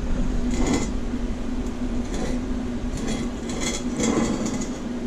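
A welded steel exhaust header collector being turned over on a workbench, with a few short scrapes and light clinks of metal, over a steady hum.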